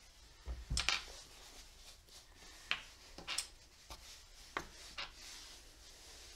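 Soft handling noises: a few light clicks and knocks as a small wooden block and a screw are picked up and put down on the bench, with faint rubbing between them.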